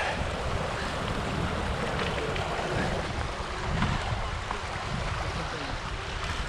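Wind buffeting the microphone in a constant low rumble, over a steady rush of water.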